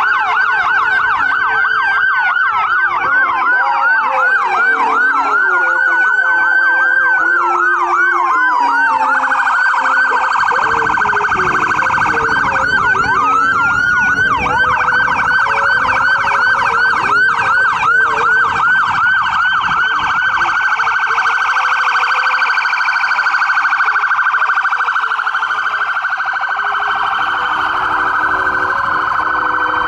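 Several emergency vehicles' electronic sirens sounding at once and overlapping: fast yelp sweeps mixed with slower wails that rise and fall. About a third of the way in they thicken into a dense, rapid warble.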